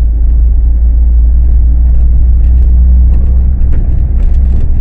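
Loud, steady low rumble of a car on the move, with a few faint ticks in the second half.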